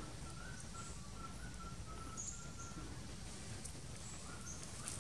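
Outdoor ambience with a bird calling a string of short, level whistled notes, about three a second, and a few brief high chirps, over a steady low rumble.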